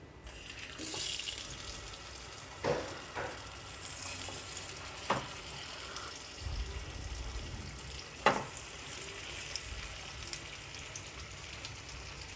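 Marinated chicken pieces sizzling in hot oil in a grill pan, a steady hiss, with four sharp knocks as pieces are laid into the pan.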